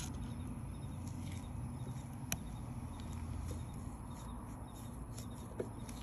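Small clicks and rubbing of gloved hands and a thin blade working the plastic locking tabs of a dishwasher wash pump housing, with one sharper click about two seconds in, over a low steady hum.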